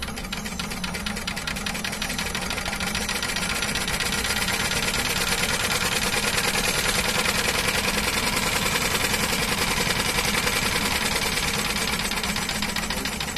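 Single-cylinder test-bed engine running on propane with a fast, even firing beat. It grows louder through the first half and eases off a little near the end.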